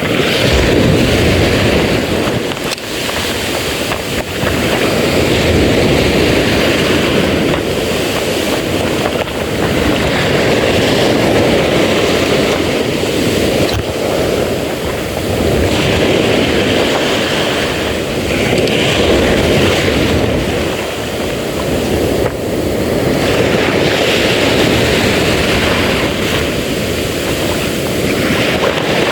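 Wind buffeting the microphone over the sound of the sea: a loud, rough rumble that swells and eases in gusts, with no steady engine tone.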